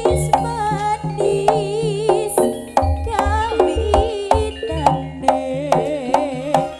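Live jaranan gamelan music: sharp hand-drum strokes keep a steady beat under a wavering, ornamented melody line, with sustained low tones beneath.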